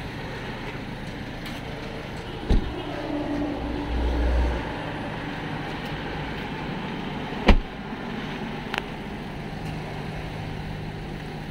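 Steady low hum of a vehicle engine running, with two sharp knocks about five seconds apart, the second louder, and a brief low rumble between them.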